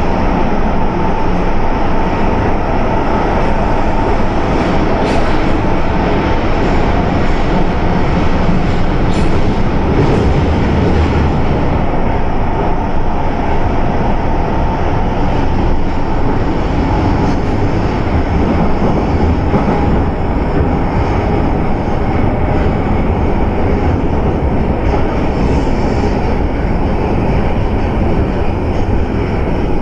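Osaka Metro 400 series subway train running at speed, heard from inside the passenger car: a steady, loud rumble of wheels on the rails and running gear that does not rise or fall.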